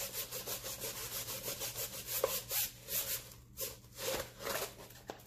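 Rolled-up diamond painting canvas rolled back and forth under both hands on a tabletop, a rubbing sound with about five strokes a second that slows and turns irregular about halfway through. It is being reverse-rolled to flatten it.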